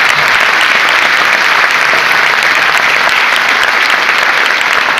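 Large audience applauding loudly and steadily, a dense clapping that holds even throughout.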